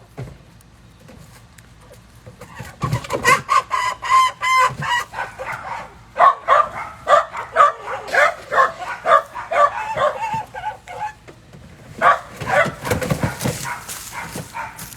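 Chicken squawking in quick repeated cries, two or three a second, in three loud stretches with short pauses between them.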